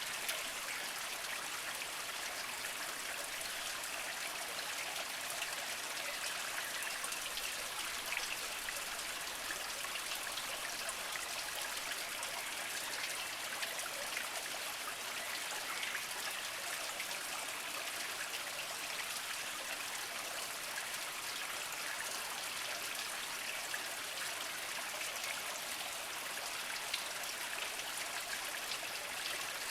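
Small mountain spring trickling and splashing over mossy rocks: a steady water sound with scattered droplet ticks.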